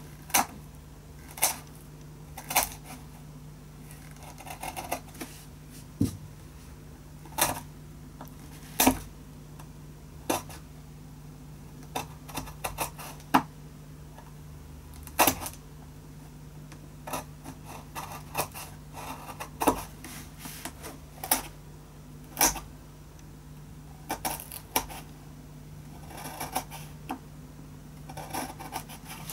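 A hand gouge paring down small wooden cleats glued across the cracks inside a cello top: sharp clicks as each cut snaps off a chip, about one every second at irregular spacing, with light scraping between cuts.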